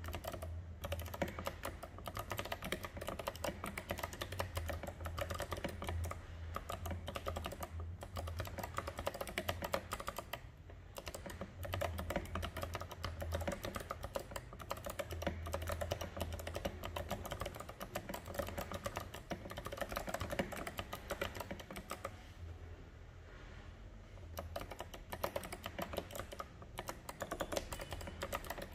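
Fast, continuous typing on an NJ68 mechanical keyboard with Kailh Box White clicky switches and SA-profile keycaps: a dense stream of crisp clicks that eases briefly about three-quarters of the way through.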